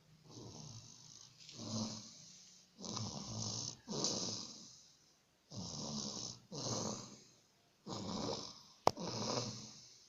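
A person snoring in a steady rhythm, with eight noisy breaths each under a second long. A single sharp click sounds near the end.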